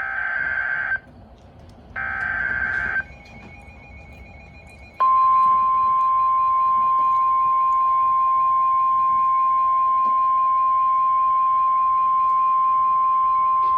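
Emergency Alert System activation on NOAA Weather Radio: two one-second bursts of screechy SAME digital header data, a second apart. About five seconds in, the single steady weather-radio warning alert tone starts and holds for about nine seconds, the signal that a warning, here a severe thunderstorm warning, is about to be read.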